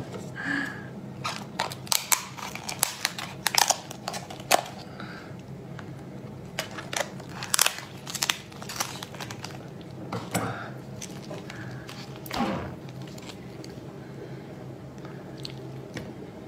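Raw spiny lobster tail shell cracking and crackling as it is twisted and pried apart by hand. The sharp cracks come thick in the first five seconds, then more scattered.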